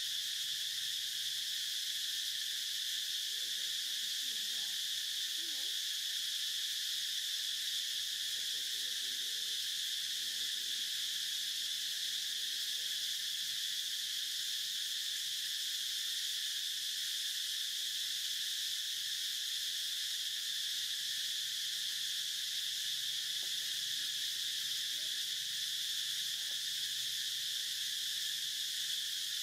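Insect chorus: a steady, unbroken high-pitched buzz.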